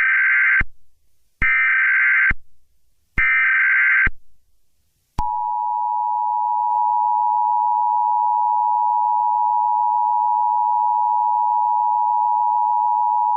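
Emergency Alert System tones: three short bursts of SAME header data tones about a second apart, then the steady two-tone EAS attention signal, held for about eight seconds and stopping at the very end.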